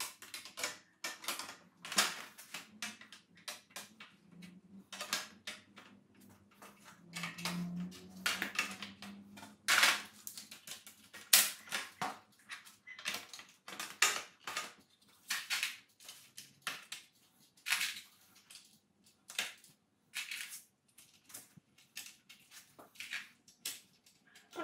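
Irregular clicks, taps and short rattles of parts and hand tools being handled during motorcycle assembly, with no steady rhythm and a few louder sharp knocks.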